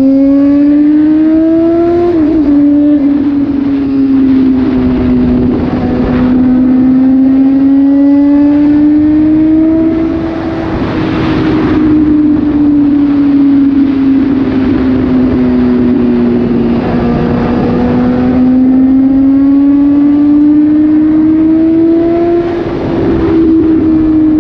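Suzuki GSX-S750 inline-four running through an SC-Project slip-on exhaust with the dB killer removed, under way. The engine note slowly rises and falls and drops sharply about two seconds in, as at a gear change. Wind rushes over the microphone a few times.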